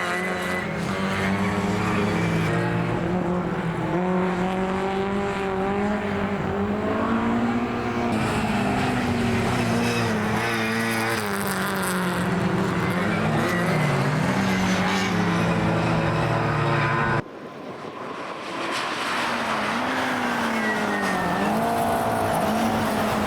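Classic racing cars' engines running hard, their pitch rising and falling with throttle and gear changes, several engines overlapping. About 17 seconds in the sound cuts abruptly to another car's engine, revving up and down.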